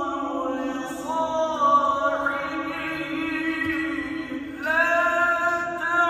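Quran recitation (tilawah): one voice chanting long held notes with ornamented turns in pitch.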